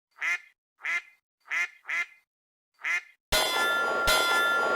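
A duck quacks five times. A little over three seconds in comes a sudden metallic clang, then a second strike just after, and both leave a long ringing tone that fades.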